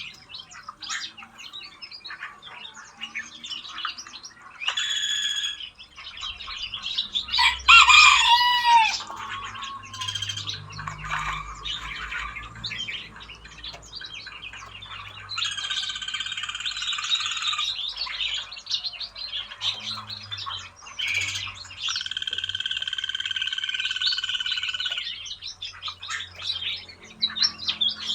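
Many aviary birds chirping and calling together, with a loud burst of harsh calls about eight seconds in. Twice a steady, high trilling tone runs for a few seconds beneath the chirps.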